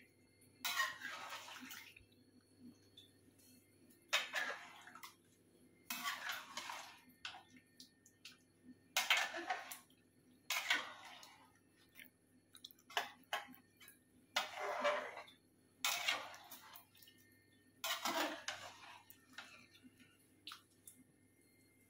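A ladle or spoon stirring chicken curry thinned with hot water in a cooking pot: about ten scraping, sloshing strokes, one every second or two.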